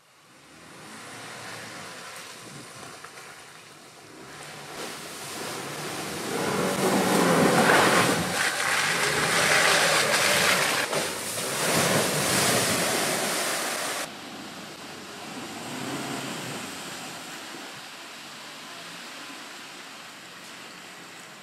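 Land Rover Defender 90 P300 with its 2.0-litre four-cylinder engine driving through mud, tyres churning and splashing, under a rushing, wind-like noise. The noise swells as the vehicle passes close by, cuts off suddenly about two-thirds of the way through, then carries on lower as it comes on again.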